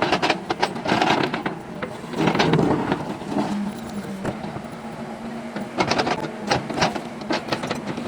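JCB machine working: its diesel engine runs steadily while bursts of clanking and scraping come in three spells, near the start, around two to three seconds in, and again near the end.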